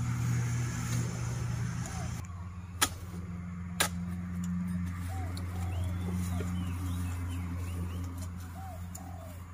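An engine running steadily with a low hum that shifts down in pitch about two seconds in. Two sharp knocks come about a second apart, and small birds chirp in the background.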